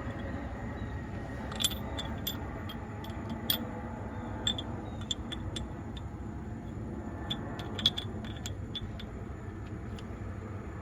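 Irregular small clicks and taps of Stripmeister wire-stripper parts being handled and fitted back together, over a steady low rumble.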